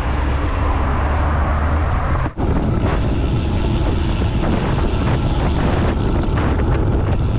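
Wind buffeting a bicycle-mounted camera's microphone on a road bike riding at about 26 to 34 km/h, a steady loud rush heaviest in the low end. It cuts out for a moment about two seconds in, then carries on.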